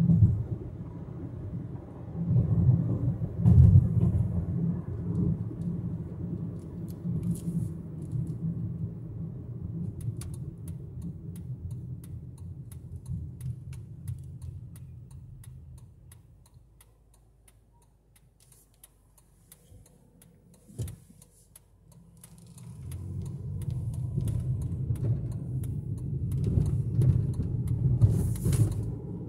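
Low road and engine rumble inside a moving car's cabin. It fades to almost nothing around the middle as the car slows and stops at a crossroads, with one sharp knock, then builds again as the car pulls away.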